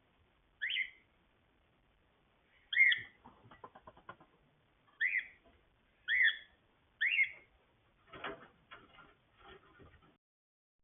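Cockatiel giving five short, sharp chirps a second or two apart. Soft rapid clicking follows the second chirp, and scratchy rustling comes near the end.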